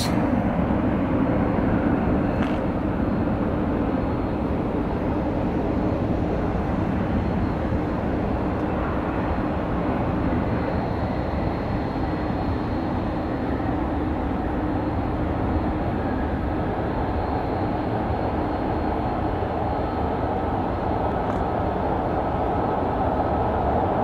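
Steady rumble of the jet engines of a twin-engine widebody airliner, a Boeing 777, as it lands and rolls out on the runway.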